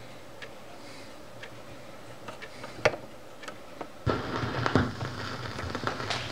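Scattered faint clicks, then about four seconds in a Philips record player's stylus comes down on a spinning 45 rpm single: crackle and clicks from the lead-in groove over a low hum.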